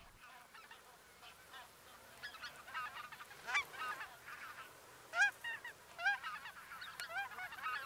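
Greater white-fronted geese (specklebellies) calling in flight: short, high yelping calls, faint and scattered at first, then coming several a second from about two seconds in.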